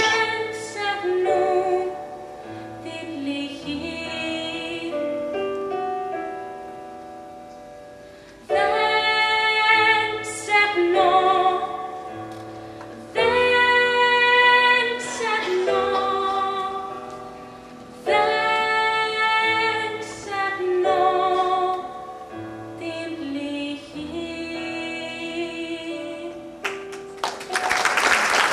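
A woman singing a slow Greek song in long held phrases over sustained chords from a stage keyboard. Applause breaks out near the end as the song finishes.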